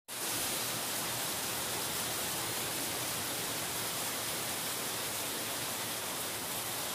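Steady rain falling in forest, a constant even hiss that cuts in abruptly.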